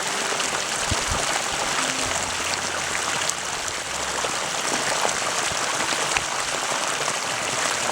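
Water rushing and splashing in a steady, dense hiss that cuts in suddenly.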